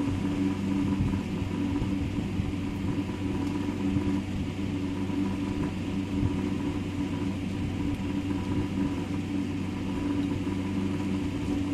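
Steady low electrical hum over a rumble, with faint light clicks and rubbing as chalky slate pencils are snapped and handled in a cup.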